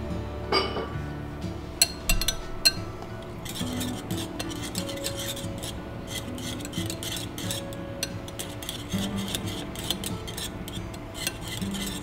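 Wire whisk beating softened butter into thick lemon curd in a glass bowl, its wires clicking and scraping quickly against the glass from about three and a half seconds in. A few separate clinks of the whisk on the bowl come before that.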